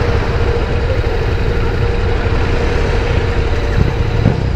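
KTM 390 Duke's single-cylinder engine idling steadily, a low rumble, with a couple of small rises in level near the end.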